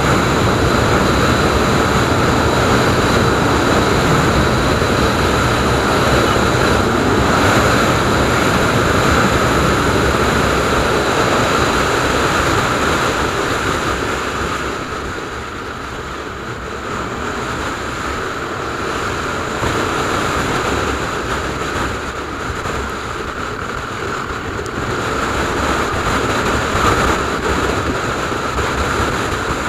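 Wind rushing over the microphone of a Bajaj Dominar 400 motorcycle riding at speed, with the bike's single-cylinder engine and tyre noise underneath. It eases a little about halfway through and then builds again.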